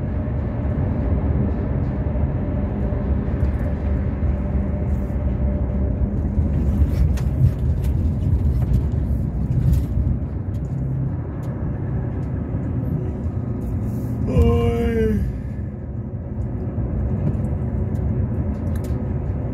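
Steady low engine and road rumble from inside a moving vehicle on a motorway, with tyre noise and a faint steady engine hum. About fourteen seconds in there is one short sound whose pitch drops steeply.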